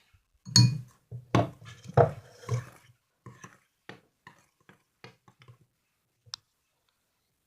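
Knocks and light taps of a glass and container being handled while borax water is added to a runny homemade glue slime and mixed: several sharper knocks in the first two and a half seconds, then softer scattered taps and a small click near the end.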